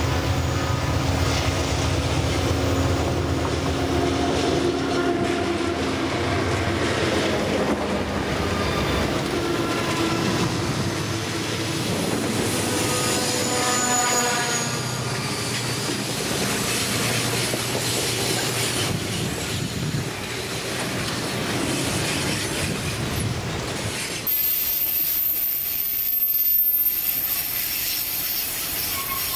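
Diesel-electric freight locomotives approaching and passing close by with their engines running, and the wheels squealing on the curve around the middle. About three quarters of the way through, the sound changes to tank cars rolling past on the rails.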